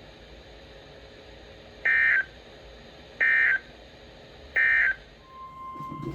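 EAS end-of-message data signal: three short bursts of shrill warbling digital tones, evenly spaced a little over a second apart, marking the end of the severe thunderstorm warning broadcast. A faint steady tone comes in near the end.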